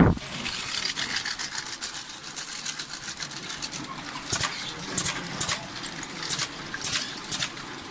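Automatic bottle filling line running: a steady high hiss with frequent irregular clicks and clinks, sharper and louder ones coming every half second or so in the second half.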